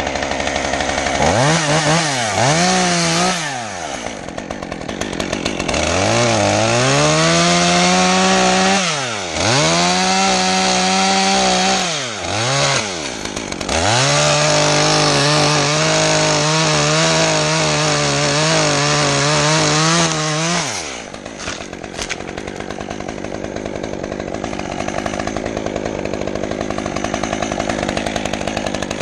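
Two-stroke chainsaw revved up and down several times and held at high speed for stretches of several seconds, then dropping back to idle for the last eight seconds or so.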